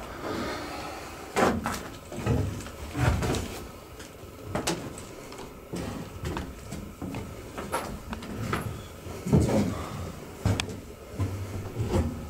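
Footsteps on wooden attic floorboards, irregular knocks about once a second.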